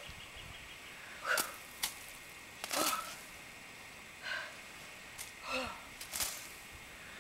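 A person exercising with a weighted power rope, huffing out about seven short, sharp breaths at uneven intervals, with a couple of light clicks between them.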